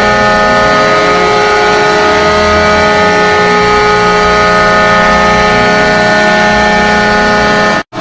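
Atlanta Thrashers' retro arena goal horn sounding one long, loud, steady blast, the signal of a goal scored; it cuts off suddenly just before the end.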